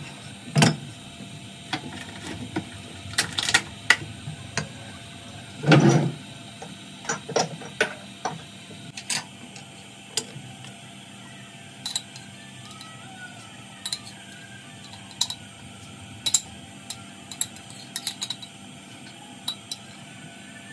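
Kitchen cooking clatter: irregular knocks and clinks of utensils and pots, thickest in the first eight seconds with a heavier thump about six seconds in, then sparser ticks. A faint steady hum runs underneath.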